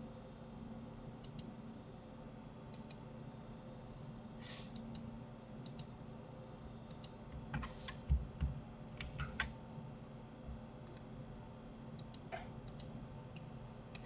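Faint computer keyboard keystrokes and mouse clicks, scattered, with a quicker cluster of clicks and a couple of dull knocks about eight seconds in.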